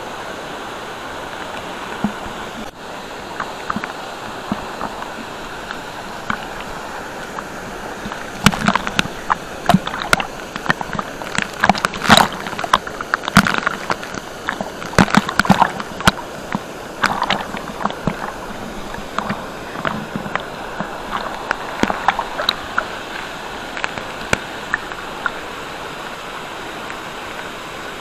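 Rushing water of a waterfall and its stream, a steady noise, with many irregular sharp splashes and sloshes close by, thickest in the middle of the stretch.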